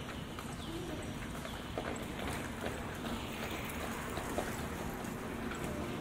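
Quiet city street ambience with no motor traffic: a steady background hum, scattered light taps and faint short chirps.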